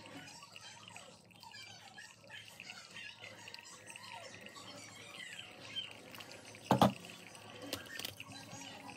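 Hot water poured in a thin stream from a gooseneck kettle onto coffee grounds in a paper-lined pour-over dripper, a soft steady trickle and splash. A sharp knock about seven seconds in, and a lighter click a second later.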